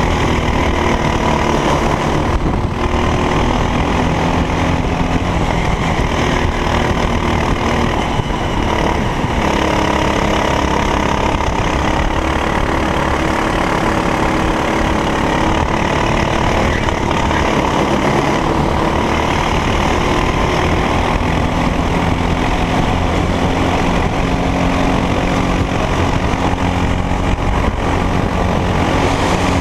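Racing kart engine running hard at race pace, its pitch rising and falling as it accelerates and slows.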